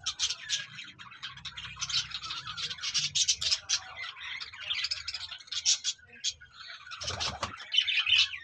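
Many small cage birds chirping and tweeting in quick, high-pitched notes, with a brief rustle about seven seconds in.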